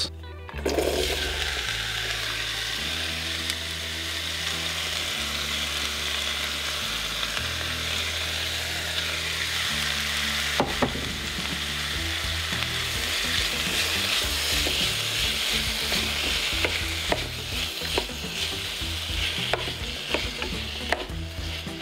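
Chopped peppers, onion, tomato and garlic sizzling in hot oil in a pot: a steady frying hiss, with a few sharp clicks about halfway and near the end.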